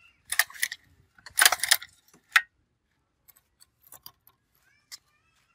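Small metal objects clinking and rattling in two short bursts, then one sharp click about two seconds in, followed by a few faint ticks.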